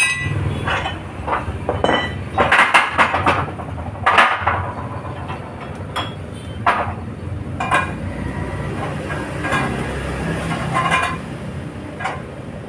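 Irregular metal clanks and knocks, some ringing briefly, as a Yamaha Mio wheel rim and round steel bars are moved about and set down on a steel screw press, over a steady low hum.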